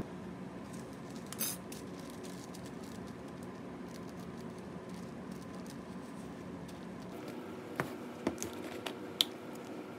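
Quiet room tone with a steady hum, then a few light clicks and taps near the end as a bottle and weighing paper are handled on an electronic lab balance.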